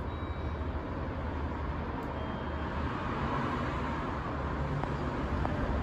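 Steady low rumble of background noise, with no distinct event.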